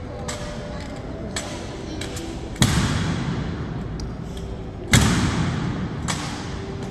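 Honor guard drill in a large hall: two loud, sharp thuds about two and a half seconds apart, each ringing on in the hall, with fainter clicks of steps and gear between them.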